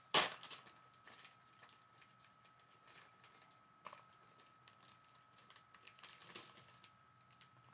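Clear plastic packaging of a pack of foam adhesive sheets crinkling sharply as it is opened at the start, then faint scattered ticks and rustles as the sheets and card stock are handled and laid down.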